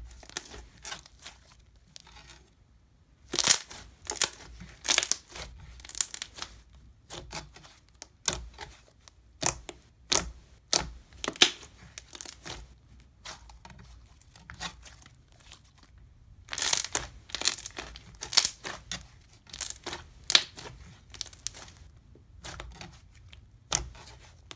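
Thick, glossy glue slime being stretched and squished by hand, making irregular short bursts of sticky, noisy sound with brief pauses between.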